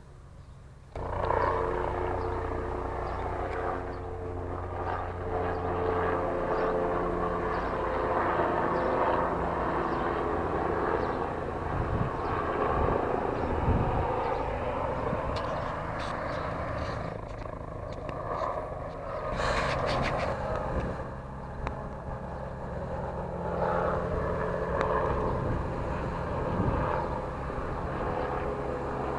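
Steady engine noise from firefighting machinery, a wildland fire engine and a helicopter, starting about a second in. A brief louder rush comes about two-thirds through.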